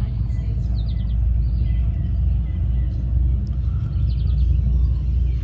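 Outdoor background with a strong, uneven low rumble. A small bird chirps two quick trills over it, about one second in and again about four seconds in.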